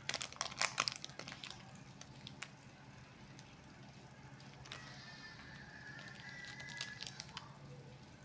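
Chocolate bar wrapper crinkling in quick crackles for the first second or so, then only a few scattered crackles.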